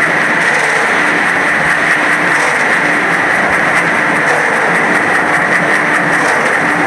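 Drum mixer turning, its load of sand, cement and fibres churning and sliding against the steel drum in a steady, loud, gritty rush.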